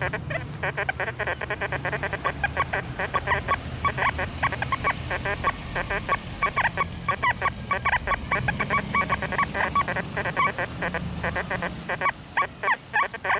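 XP Deus II metal detector sounding rapid, choppy target tones, several short beeps a second, as the coil sweeps over ground littered with iron trash.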